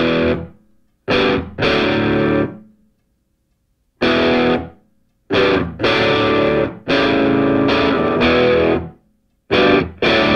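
Background music: a distorted electric guitar playing stop-start chords, each struck sharply and held up to about two seconds, with short silences between.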